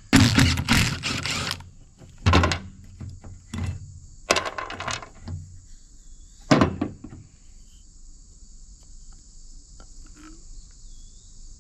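Metal fuel filter housing knocking and clattering as it is handled and taken apart: a burst of clatter at the start, then a few single knocks spaced a second or so apart through the first seven seconds.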